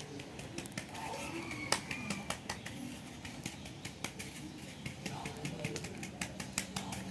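Plastic flour sieve being shaken and tapped by hand as wheat flour sifts through its mesh: a quick, irregular run of light taps and clicks, several a second.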